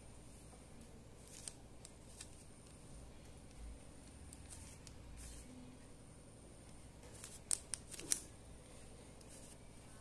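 Plastic layers of a 3x3 Rubik's cube clicking faintly as they are turned by hand, with a cluster of sharper clicks about seven to eight seconds in.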